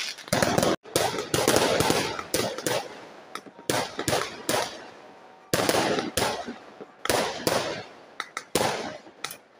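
Aerial firework shells bursting in repeated volleys: clusters of sharp bangs, each trailing off in a crackling, fading tail.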